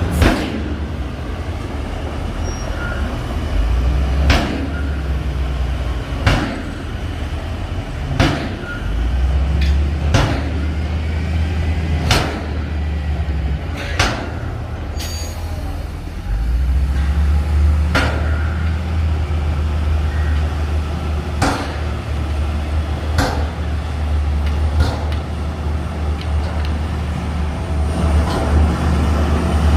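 Bulldozer's diesel engine working under load, its low drone swelling and easing as it pushes. Sharp knocks come roughly every two seconds.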